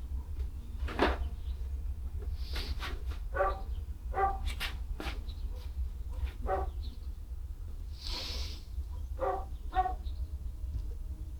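Dogs barking: about half a dozen short barks spaced out over several seconds, over a steady low hum, with a few sharp clicks and a brief hiss about eight seconds in.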